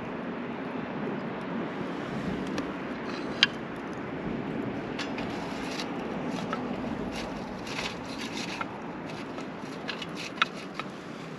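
Wood fire burning in a small B6-kun folding fire stand: a steady low rush with scattered sharp crackles and pops, the loudest pop about three seconds in and another near the end.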